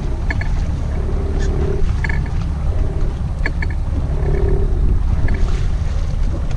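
Steady low rumble of wind and the boat, with a conventional fishing reel cranked in short spurts against a hooked fish. Two brief whirs, about a second in and again around four seconds, come with scattered light clicks.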